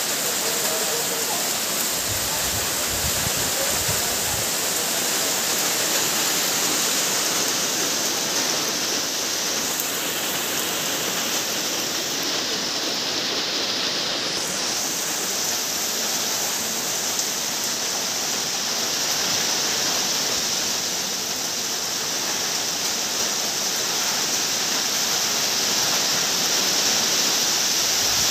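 Heavy typhoon rain pouring steadily onto vegetation and wet ground, with muddy runoff water rushing over the soil.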